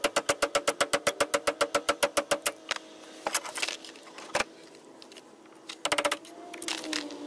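Rapid hammer blows on a steel tool wedged against a seized lower outer ball joint of a 2004 Mini Cooper S, at about five strikes a second with metallic ringing, to drive the joint out of the steering knuckle. After about two and a half seconds the blows become scattered single strikes and a short burst.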